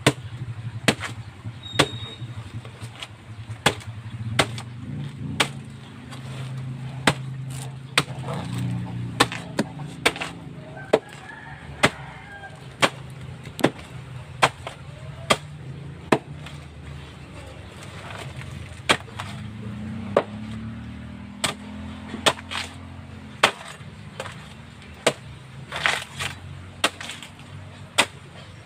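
Machete chopping a banana trunk into chunks: a steady run of sharp chops, a little more than one a second.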